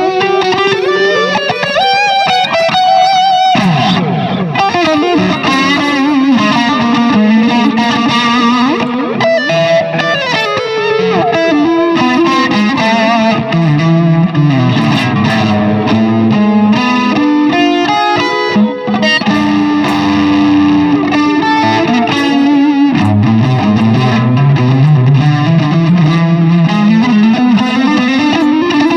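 Electric guitar played through a Keeley Halo Core delay pedal, a run of single notes and phrases with echoes from the delay. Near the end, the low notes slide upward.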